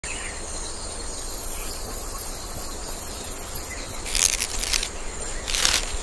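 Insects chirping like crickets: a steady high-pitched hum, with two louder, rapid pulsing trills about four and five and a half seconds in.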